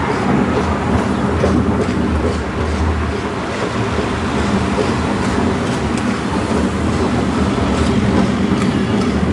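Douglas Bay horse tram rolling along its rails: a steady rumble from the car's wheels running on the track, with faint scattered clicks.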